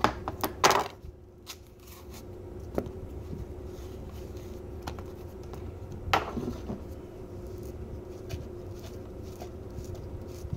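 Knocks and handling as a camera is set down on a granite counter, then the quiet sounds of a knife cutting a banana: soft scrapes and light clicks, with one sharper knock about six seconds in, over a steady hum.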